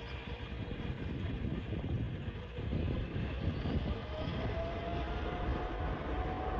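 Jet airliner engines rumbling as a plane comes in to land, with wind on the microphone. A faint engine whine rises slowly in pitch from about four seconds in.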